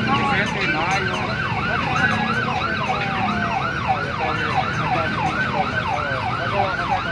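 A vehicle siren on a fast yelp, its pitch sweeping up and down about three times a second without a break.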